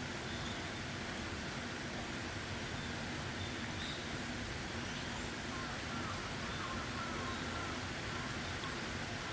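Steady rain falling, an even hiss, with faint birdsong over it: a couple of brief chirps near the start and a short run of chirps about halfway through.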